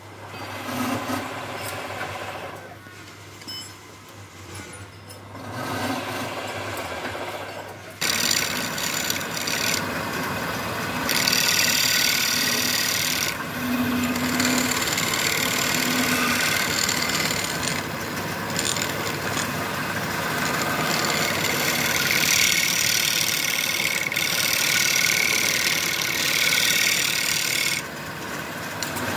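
Wood lathe spinning a wooden bowl while a hand-held steel scraper cuts its inside face. The first several seconds hold a low steady hum and a few light tool contacts. From about eight seconds in comes a loud, steady scraping hiss of the tool in the wood, easing off briefly a few times and dropping near the end.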